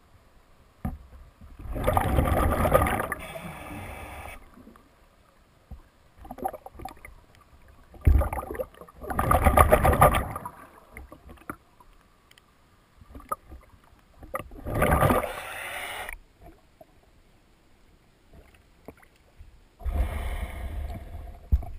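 Scuba diver's exhaled breath bubbling out of the regulator, heard underwater: three long bursts about six seconds apart, with quiet between breaths. Near the end the water sloshes and splashes as the diver breaks the surface.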